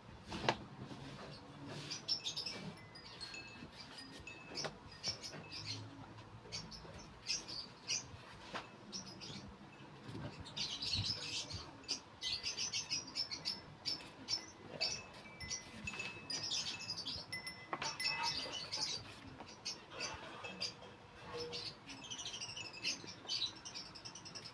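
African lovebirds chirping and twittering continuously in quick, high-pitched calls, with a few light knocks now and then.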